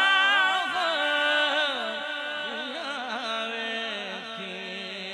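A man's voice singing a naat through a microphone and PA, drawing out the end of a line in a wavering, ornamented run. It settles into a long held lower note that slowly fades.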